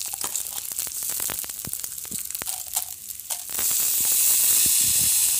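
Freshly washed rice poured into hot oil and whole spices in a karahi, sizzling with many small crackles. The sizzle swells louder about three and a half seconds in.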